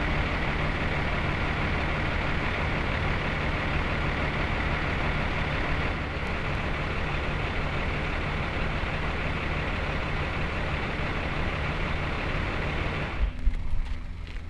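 Heavy diesel engine idling steadily, with a low hum under a broad rushing noise, from parked fire and rescue vehicles; the sound drops away suddenly about 13 seconds in, leaving a quieter background.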